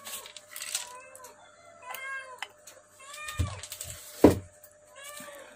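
A cat meowing several times in short, rising-and-falling calls. Two sharp knocks, the second the louder, come about three and a half and four and a half seconds in as the loudspeaker is handled on the workbench.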